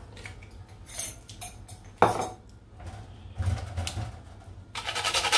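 Kitchen utensils and containers knocking and clattering on a counter, with one sharp clack about two seconds in. Near the end a whole nutmeg starts being rubbed quickly back and forth on a metal box grater, a fast, even scraping.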